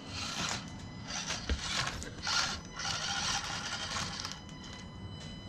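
Micro RC crawler's electric motor and gearbox whirring in short bursts as it is driven in spurts, with its tires scrabbling and scraping over the course.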